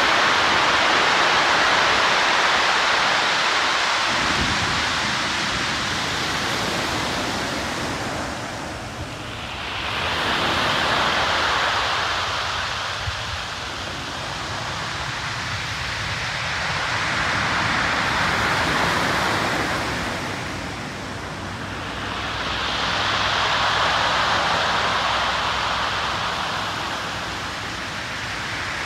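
Sea surf breaking and washing up a pebble beach: a continuous rushing hiss of water that swells and fades in slow surges several seconds apart.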